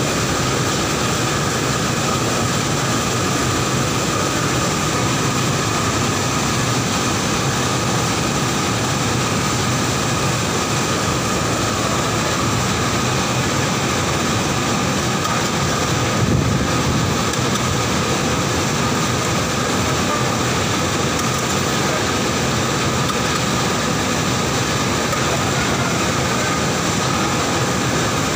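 Mustard oil mill machinery running: a steady mechanical drone with a constant high-pitched whine over it. A brief louder low rumble comes about sixteen seconds in.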